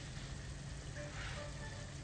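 Chicken simmering in sauce in a pan, a steady low sizzle, under soft background music.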